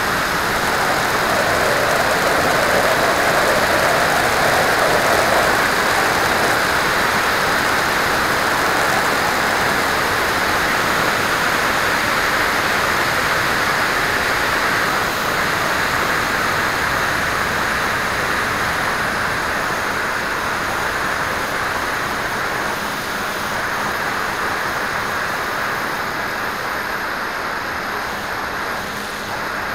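Steady rushing wind noise buffeting a keychain camera's microphone as it comes down fast from high altitude toward a field.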